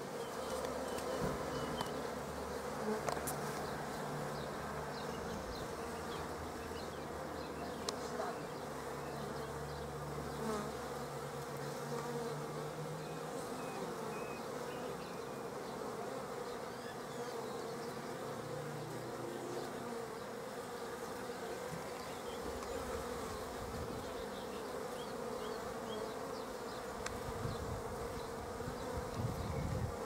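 Feral honeybee colony buzzing at its nest entrance, a steady dense hum of many bees flying and crawling around the hole.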